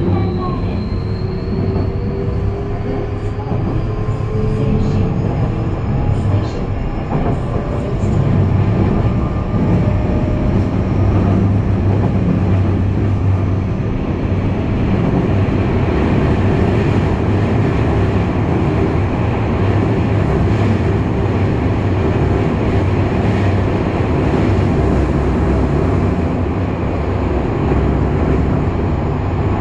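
Kobe Municipal Subway 6000-series train heard from inside the car: the motor whine rises in pitch over the first several seconds as it picks up speed. After that comes a steady running rumble of wheels on rail in a tunnel.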